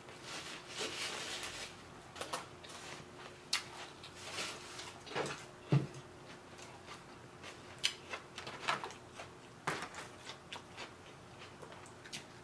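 Chewing of a Vietnamese fresh spring roll with the mouth closed: scattered soft mouth clicks and smacks, with one louder knock about halfway through.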